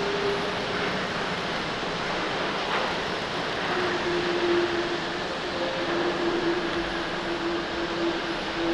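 Jet engines of an Airbus A330 airliner running during its landing roll, a steady rushing noise. A droning tone under it steps slightly lower about four seconds in.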